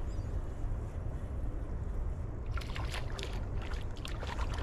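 Wind rumbling on the microphone. From about halfway in come several irregular splashes as a hooked white bass thrashes at the water's surface while it is reeled in.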